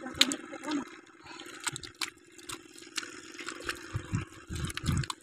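Hands digging in wet river mud: irregular wet squelches and splats as the mud is scooped and slapped, with a run of heavier thuds about four to five seconds in.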